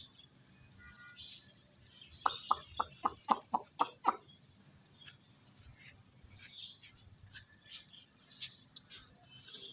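Chicken clucking: a quick run of about eight short clucks over two seconds, with faint high chirps scattered around it.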